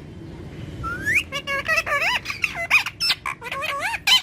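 Green ring-necked parakeet chattering and squawking: a quick run of warbling, up-and-down calls with sharp clicks between them, starting about a second in.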